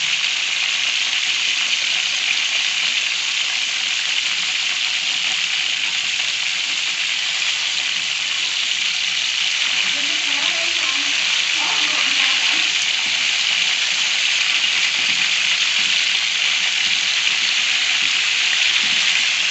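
Whole quails deep-frying in a pan of hot oil with garlic cloves: a dense, steady sizzle of bubbling oil.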